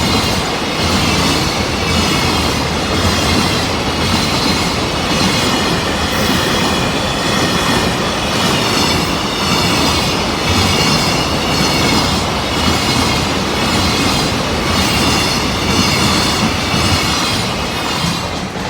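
A JR Freight container train hauled by an EF210 electric locomotive passing close by at speed over a level crossing. The wagons make a steady, loud rush of wheels on rail with a regular clatter as each car goes by, and some high-pitched wheel squeal.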